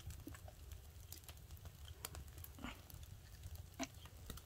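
Faint scattered clicks and light taps of utensils and dishes during a meal, over a low steady rumble.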